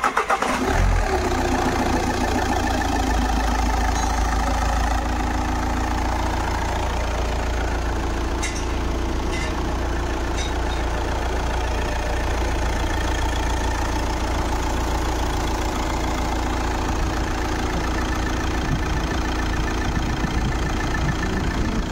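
Audi Q3's four-cylinder 2.0 TDI common-rail diesel engine idling steadily right after start-up, on its first run after a full service and oil change.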